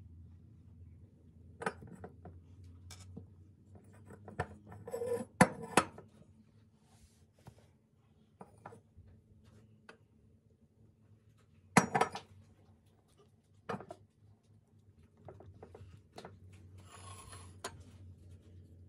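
Scattered clinks and knocks of kitchen dishes and utensils being handled, loudest about five to six seconds in and again around twelve seconds, over a low steady hum.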